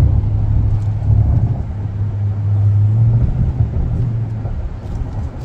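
Road noise inside a car moving at highway speed: a steady low drone of engine and tyres that eases slightly about three and a half seconds in.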